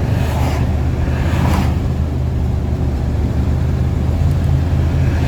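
Steady low drone of a Class C motorhome's engine and road noise heard from inside the cab while driving, with a brief lighter hiss in the first couple of seconds.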